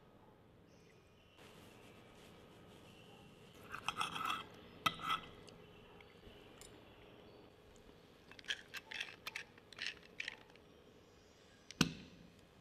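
Knife and fork scraping and clinking on a porcelain dinner plate as meat is cut, in several short bursts, with one sharper knock near the end.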